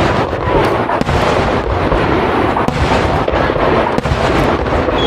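Aerial firework shells bursting in rapid succession, overlapping booms and crackle with no pause between them.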